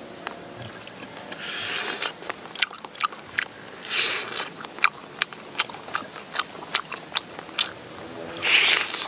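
Noisy eating at a whole roasted softshell turtle held in the hands: three long slurps, about one and a half seconds in, about four seconds in and near the end, with wet mouth clicks and chewing smacks between them.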